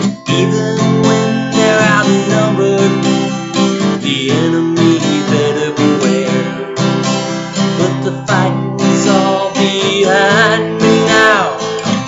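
Acoustic guitar strummed steadily under a man's singing voice, which comes and goes between phrases.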